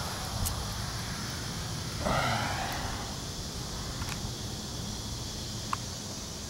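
Steady outdoor background hiss, with one short breathy puff of air, like a snort or exhale close to the microphone, about two seconds in. A few faint ticks follow.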